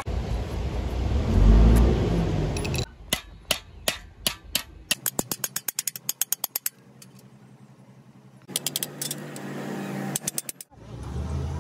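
A low rumbling noise, then a small hammer tapping sheet metal against a steel bar, shaping a bent sheet-metal radiator bracket. The light strikes come in a quick run that speeds up, stop, and resume briefly near the end.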